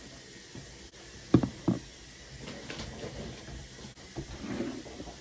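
Two sharp knocks about a second and a half in, with lighter clicks after, as plastic hair-product containers are handled and set down on a desk.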